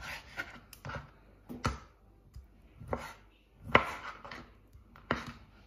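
Kitchen knife cutting orange segments on a wooden chopping board: a run of irregular knocks as the blade hits the board, the loudest just under four seconds in.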